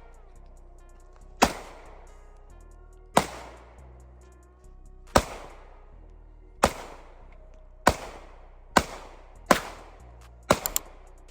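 Gunshots with an echoing tail: about seven single shots one to two seconds apart, then three fired in quick succession near the end, over background music.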